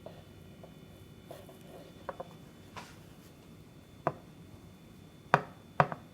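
Kitchen knife slicing sheets of sponge cake and knocking on the cutting board: faint small clicks at first, then a sharp tap about four seconds in and three quick, louder taps near the end.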